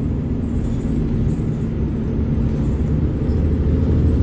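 Cabin sound of a 2012-model village bus on the move: steady engine and road rumble with a low drone, heard from inside.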